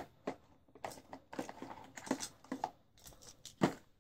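Small tools and parts being handled and moved about: scattered light clicks, taps and rustles, the sharpest a little before the end.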